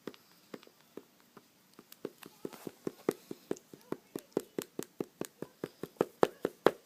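A marker or pen tapped repeatedly onto paper, dotting marks onto a drawing: a few scattered taps, then a quick run of sharp taps at about five a second in the second half.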